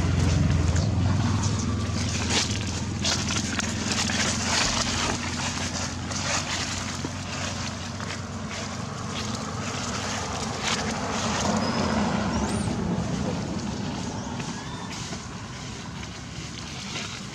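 Dry fallen leaves crunching and rustling in irregular crackles under footsteps, over a low wind rumble on the microphone that is strongest near the start.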